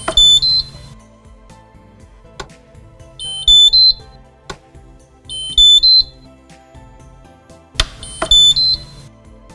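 Electronic signal beeps from a Häfele Free Swing E-Drive lift-up fitting during programming: four short runs of quick beeps, each stepping up in pitch, confirming button presses in the programming menu. Sharp clicks fall between the runs, over soft background music.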